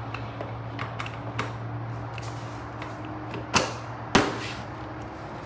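Motorcycle seat being fitted back onto a 2020 Honda Grom: scattered light clicks and handling knocks, with two sharp clunks a bit over halfway through.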